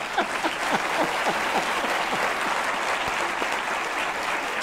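Studio audience applauding steadily, with laughter trailing off over the first second or so.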